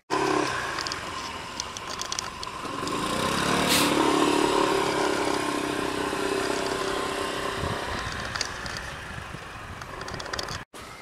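Road traffic: a motor vehicle's engine passing close by, growing to its loudest about four seconds in and then fading away.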